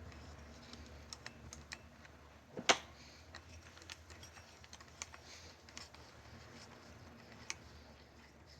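Faint, scattered small metal clicks and taps from parts of a bicycle wheel's hub being handled during disassembly, with a sharper click about two and a half seconds in.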